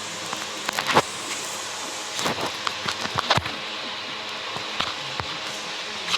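A steady hiss with a few scattered short clicks and knocks, the loudest about a second in.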